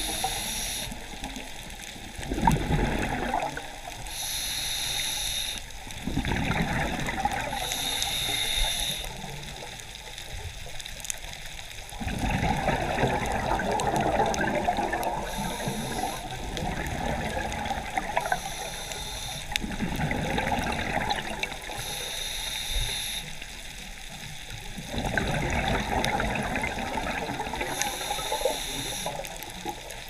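Scuba diver breathing through a regulator underwater: several short hissing inhales, each followed by a longer rush of exhaled bubbles gurgling.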